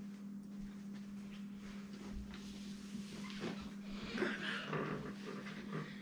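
Soft rustling and a few faint knocks of a person sitting down into an upholstered armchair, over a steady low hum.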